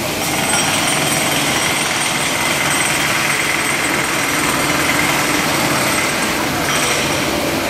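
Handheld electric power hammer working into a concrete floor slab, running steadily with a high whine over its noise.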